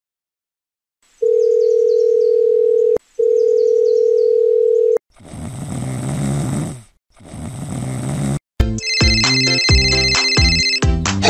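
A phone calling tone sounds as two long, steady single-pitch beeps of about two seconds each. Two cartoon snoring sound effects follow, each swelling and then fading. About nine seconds in, an electronic phone ringtone melody starts and plays loudly.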